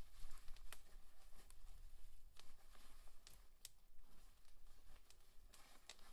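Faint wood campfire crackling, with a few sharp irregular pops.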